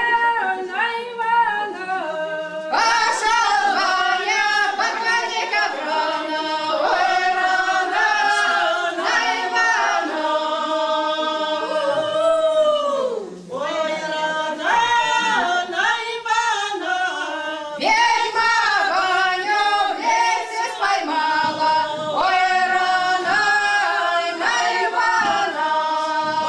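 A women's folk choir singing a Slavic folk song a cappella, several voices together in long, held phrases, with brief pauses between verses about thirteen and eighteen seconds in.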